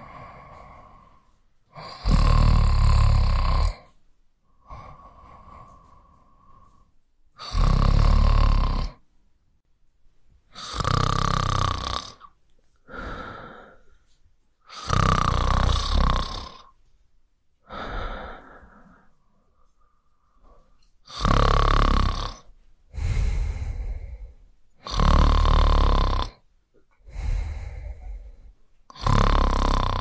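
A person snoring: loud, rasping snores every two to four seconds at an uneven pace, with quieter breaths and softer snores between them.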